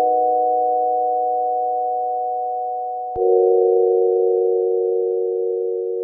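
Background music of sustained chords made of plain, steady electronic tones, each chord fading slowly. A new chord enters with a soft click about three seconds in.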